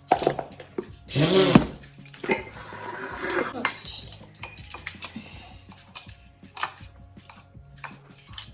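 Kitchen utensils and containers clinking and knocking against a mug and the counter while dry ingredients are measured in, with a louder clatter and scrape about a second in, then scattered light taps.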